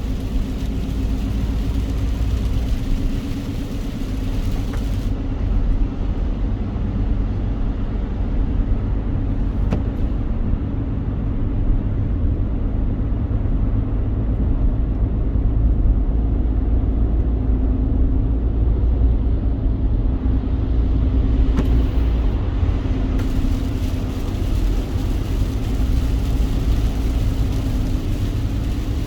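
A car driving in the rain: a steady, low road rumble. A higher hiss over it fades out for a long stretch in the middle and comes back near the end.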